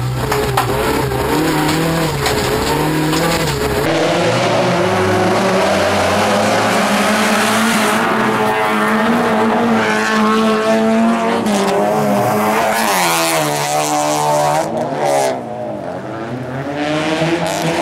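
Rallycross car engines revving hard, pitch climbing and dropping with gear changes and throttle; the first few seconds are heard inside a Toyota Corolla rallycross car's cabin, then from trackside as cars race past on the dirt track.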